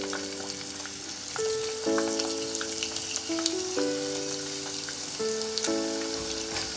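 Battered butterfly chicken pieces deep-frying in hot coconut oil: a steady sizzle with scattered crackles and pops, as more pieces are lowered into the oil. Background music with sustained, changing notes plays along.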